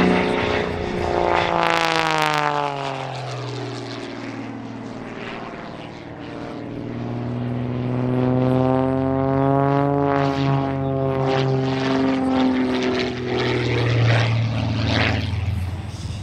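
MXS aerobatic monoplane's piston engine and propeller running hard during an aerobatic display, the pitch dropping over the first few seconds, rising back to a peak about ten seconds in, then falling again.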